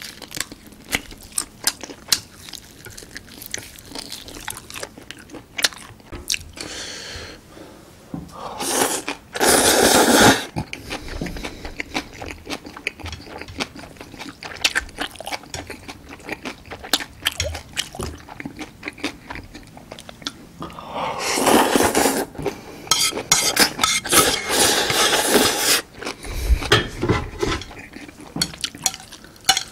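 Close-up eating sounds: chewing and smacking on jjapaghetti noodles, steak and crunchy kimchi, with chopsticks clicking on the plate. There are two longer stretches of noodle slurping, a short one about nine seconds in and a longer one in the last third.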